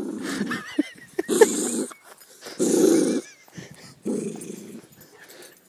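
Dog growling in about four rough bouts of under a second each, with a few brief high, wavering whine-like sounds between them.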